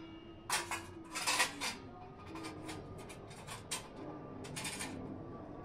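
Metal spatula clanking and scraping against a steel kadai on a gas stove while food is stirred in it: a few short, irregular clanks.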